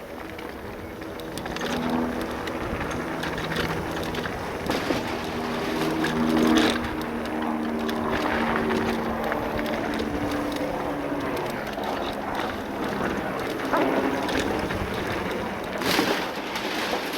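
Electric full-suspension mountain bike riding fast down a shaped gravel trail: tyres rolling over the surface, frame and components rattling over bumps, and wind on the microphone. A humming tone from the bike steps up and down in pitch.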